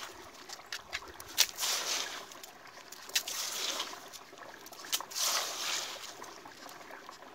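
A bare hand scraping and scooping through sandy gravel soil, three rough scrapes with small stones clicking against each other, digging out a metal detector target.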